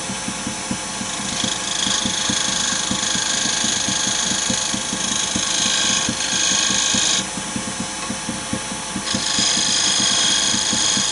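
Wood lathe running steadily while a turning tool cuts into the spinning wood of a chess-piece crown, with a hissing cut that starts about a second and a half in, stops about seven seconds in, and starts again about two seconds later.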